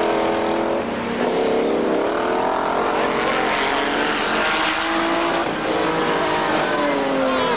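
Several stock car engines racing at once, their pitches rising and falling as the drivers rev and lift off, over a steady haze of engine and exhaust noise.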